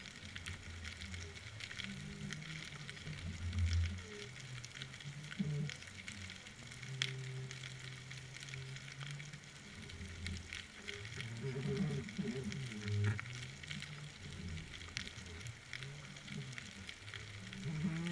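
Underwater ambience picked up by a submerged camera: a steady fizzing crackle of fine clicks, with low hums that waver and come and go.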